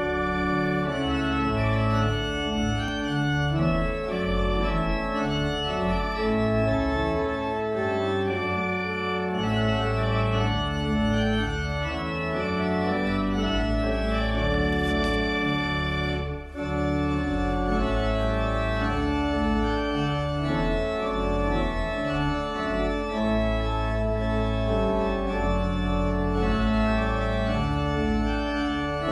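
Organ playing sustained chords over a deep bass line. It starts abruptly and drops out briefly about sixteen seconds in.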